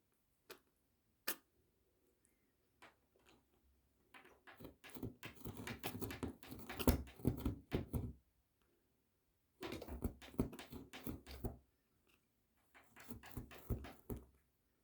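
Four-week-old sphynx kitten licking and smacking at kitten food paste, a run of rapid small wet clicks. It comes in three spells: a long one from about four seconds in, and two shorter ones near the end.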